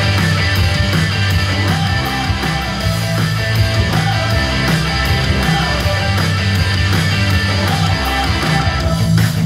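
Guitar-driven rock music playing over Bluetooth through a 100 W two-channel mini stereo amplifier into speakers, steady and loud.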